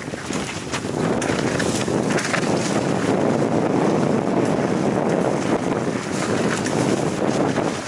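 Wind rushing over the microphone of a camera on a mountain bike riding fast down a dirt trail, mixed with tyre noise and scattered clicks and rattles from the bike.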